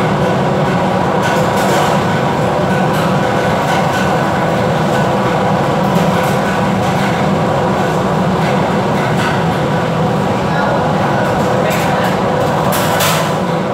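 Steady drone of a ship's machinery under way, mixed with the rush of wind and breaking waves in a rough sea. A couple of short rushes of noise come near the end.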